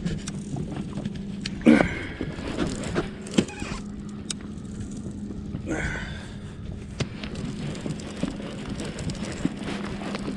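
Conventional fishing reel cranked close to the microphone while reeling in a hooked fish, with scattered clicks and handling knocks over a steady low hum.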